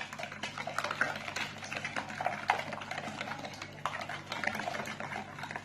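A spoon clicking and scraping against a bowl in small irregular strokes as a liquid batter of eggs, sugar, oil and milk is stirred, over a steady low hum.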